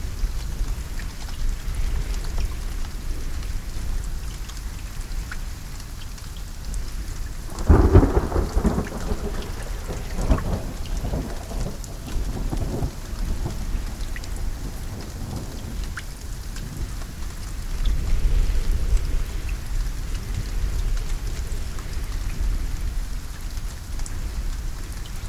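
Steady rain falling in a thunderstorm. About a third of the way in a sudden loud thunderclap breaks out and rumbles on for several seconds, and a lower roll of thunder comes again later.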